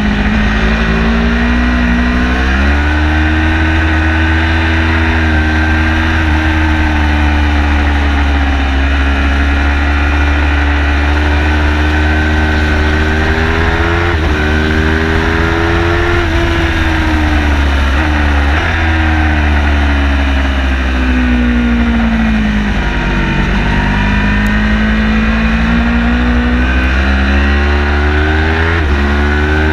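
Car engine at full effort on a race-track lap, its pitch climbing under acceleration and falling away under braking, with sudden steps in pitch at gear changes. A steady low rumble runs underneath.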